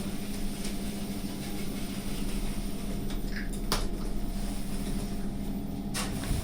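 Passenger lift car travelling up between floors with its doors shut: a steady low hum over a rumble, with a sharp click a little past the middle and another near the end.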